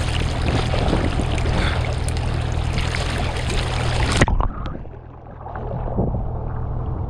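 Sea water sloshing and splashing around a hand-held action camera as a swimmer moves through the water, over a steady low hum. About four seconds in, the treble drops away suddenly and the sound turns muffled as the camera goes under the water, then it comes back up.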